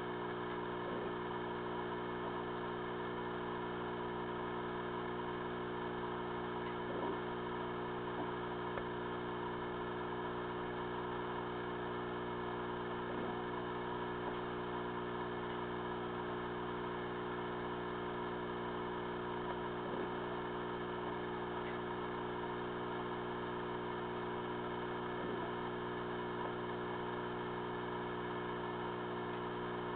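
Steady electric hum with several pitches stacked, with a few faint ticks every five or six seconds.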